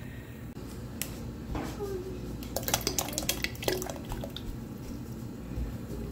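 Marinara sauce poured from a carton into a pot of water and chopped vegetables, splashing and plopping in a quick cluster of wet splats through the middle, with a couple of sharp knocks before it.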